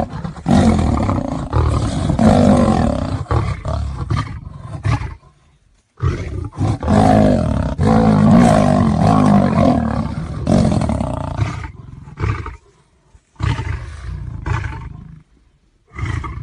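Big cat growling and roaring in long, rough bouts: one of about five seconds, a second of about six seconds after a short pause, then two shorter growls near the end.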